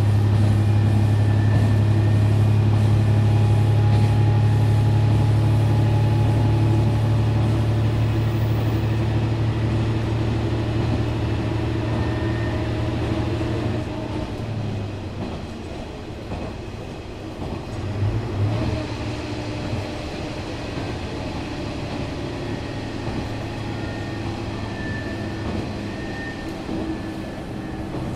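JR Shikoku 1000 series diesel railcar standing at the platform with its engine idling, a steady low hum. About halfway through the hum drops away and the sound goes quieter, with a brief low surge a few seconds later.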